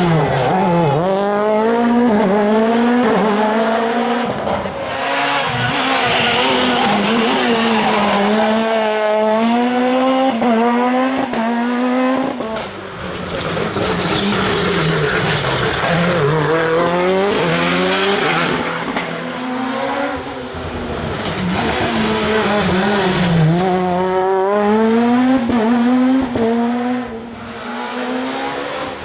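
Rally car engines revving hard, the pitch climbing and dropping again and again through gear changes and lifts off the throttle. Brief lulls come about a third and two-thirds of the way through.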